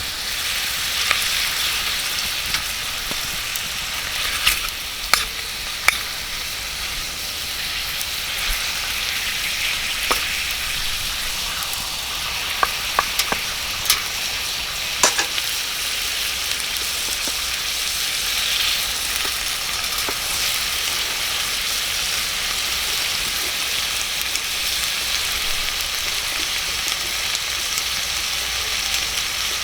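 Wood campfire burning in a mesh fire pit: a steady crackling hiss with sharp pops scattered through, most of them in the first half.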